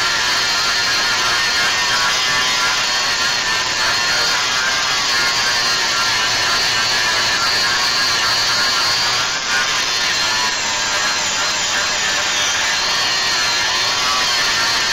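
Electric grinder grinding down the head of a steel frame rivet, running steadily with a whine whose pitch wavers as it bears on the metal.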